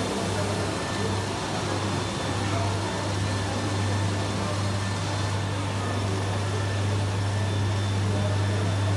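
A steady low mechanical hum from industrial machinery, with a crowd moving about and murmuring.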